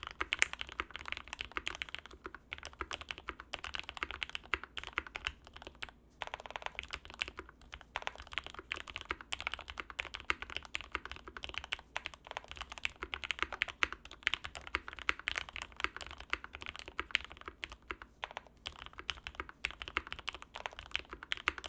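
Continuous fast typing on a Matrix 2.0 mechanical keyboard with 67 g Gateron Ink linear switches and GMK doubleshot ABS keycaps: a dense run of key clacks with a brief pause about six seconds in.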